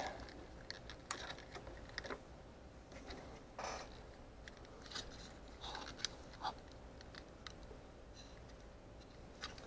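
Faint, scattered clicks and light taps of small hard-plastic model engine parts being handled by hand, a few isolated knocks a second or so apart.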